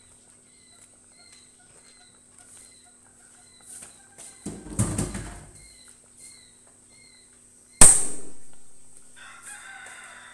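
Domestic fowl calling in the background, with a rough call about five seconds in and another near the end. About eight seconds in comes a single sharp bang that rings out, the loudest sound.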